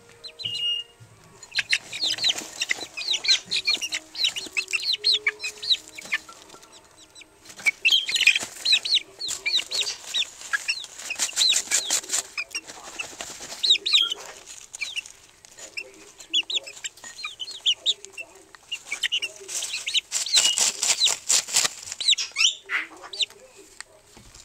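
Chickens dust-bathing in a dish of feed crumbles: wings flapping and feet scratching, scattering the feed, in three bursts of rattling, with soft clucking from the birds.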